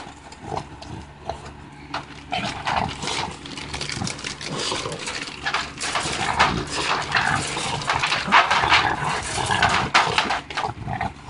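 American bully dog eating raw meat in her crate: wet, irregular chewing, smacking and licking noises that grow busier and louder about halfway through.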